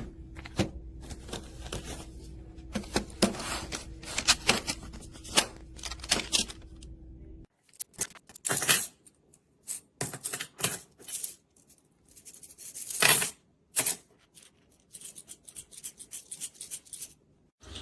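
Plastic magnetic building tiles and small toy pieces clicking and clattering irregularly as they are handled and snapped together. A low background hum drops out abruptly about halfway through, and the clicks go on.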